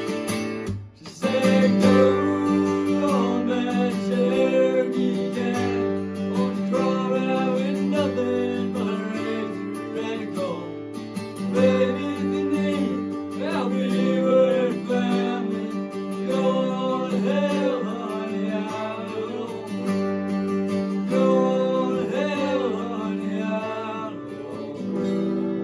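Acoustic guitar strummed with a voice singing a country song over it, resuming after a brief break about a second in.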